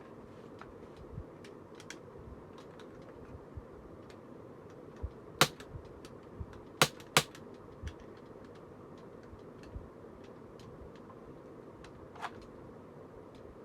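Sharp mechanical clicks and snaps from a CO2 airgun: scattered small clicks, with three loud snaps near the middle, the last two close together.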